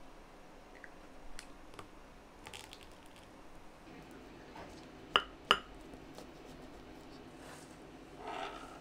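Kitchen handling sounds: light taps and clicks, with two sharp clicks about a third of a second apart a little past the middle.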